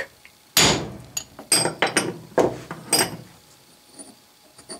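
A single heavy hammer blow on a steel sleeve about half a second in, with a short metallic ring, driving the transfer screws' points into a steel index plate blank to mark its hole positions. Several lighter metal clinks follow as the sleeve and plate are handled.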